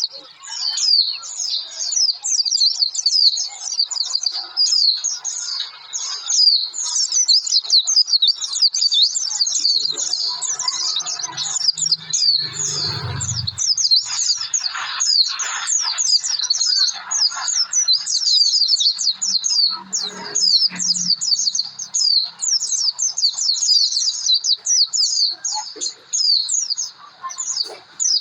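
White-eye (pleci) in vigorous song, a fast, unbroken stream of short, high chirping notes. It is the kind of lively song that is played as a lure to set caged white-eyes singing.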